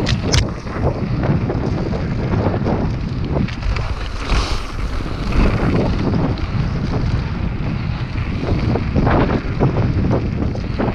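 Wind buffeting an action camera's microphone while riding a mountain bike on dirt singletrack, over a steady rumble of the knobby tyres on the dirt and frequent small knocks and rattles from the bike going over bumps.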